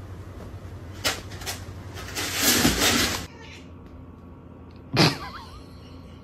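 A cat at a plastic litter box: two light clicks, then about a second of loud scratchy rustling. A couple of seconds later comes a single sharp thump as a cat pounces on a wooden floor.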